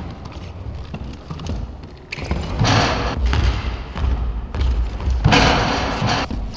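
A sports wheelchair rolling and knocking on a hardwood gym floor, with dull basketball thuds, in an echoing hall. Two louder stretches of rolling noise, each about a second long, come about two and five seconds in.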